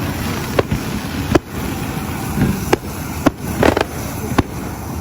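Fireworks going off: about six sharp bangs spread through a steady low background rumble, one of them with a short crackle about three and a half seconds in.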